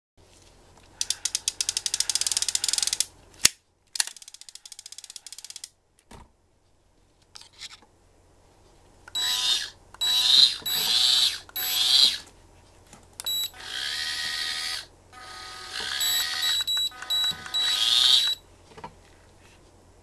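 Daiwa Super Tanacom S-500 electric fishing reel being worked: first a fast run of even ratcheting clicks from its spool mechanism, twice, then its electric motor running in several bursts of a couple of seconds each, with short electronic beeps from the control panel.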